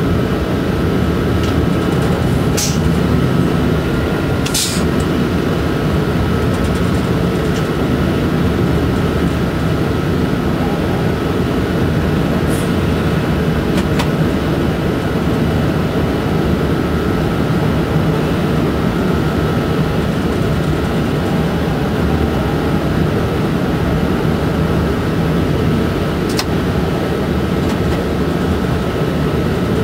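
Cab of an SNCF BB 27300 electric locomotive running at speed: a steady low rumble of wheels on rail with a thin steady whine over it. A few brief sharp clicks cut through it.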